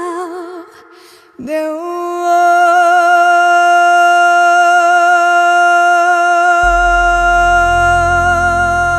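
Female voice singing a long held note: a short wavering phrase, a brief break, then a note scooped up into and held steady for about seven seconds over a quiet backing track. Low bass notes come in about two-thirds of the way through.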